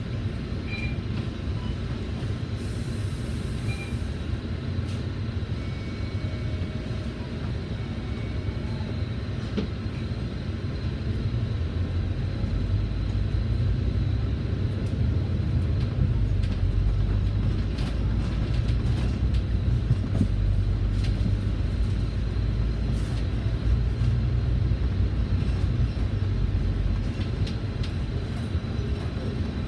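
Cabin sound of a Volvo B9TL double-decker bus: its six-cylinder diesel engine runs low and steady while the bus is nearly stationary, then grows louder about twelve seconds in as the bus pulls away, and eases off near the end.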